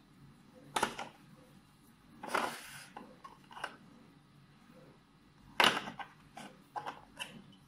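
Hard plastic clicks and rubbing as the Kemei KM-600 clipper's snap-on attachments and comb guard are handled and set into its plastic stand. There are a few sharp clicks, the loudest about three quarters of the way through, and a short scraping rub about two seconds in; the trimmer's motor is not running.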